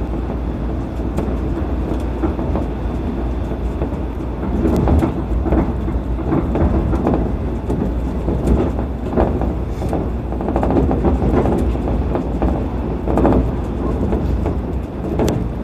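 Shonan Monorail suspended (SAFEGE) train running along its overhead track, heard from inside the driver's cab: a steady low rumble with irregular knocks and rattles as the car shakes, a little louder from about five seconds in.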